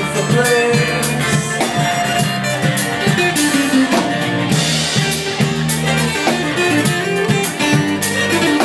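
Live band playing: an acoustic-electric guitar plays a lead melody over electric bass and a drum kit, with no singing.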